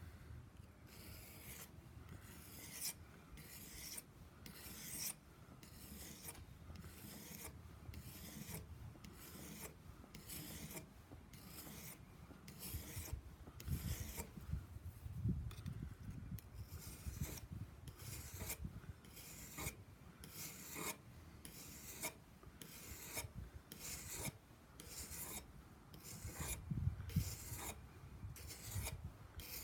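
Steel blade of a Schrade Old Timer pocket knife stroked back and forth on a wet 1,000-grit whetstone: an even, rhythmic rasp, a little more than one stroke a second, as a dull edge is ground sharper. A few low bumps sound under the strokes.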